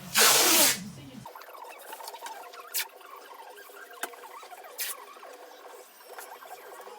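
Masking tape pulled off the roll in one loud rip about half a second long, then quieter squeaks and rustles with a few sharp taps as the tape is laid and pressed onto the worktop.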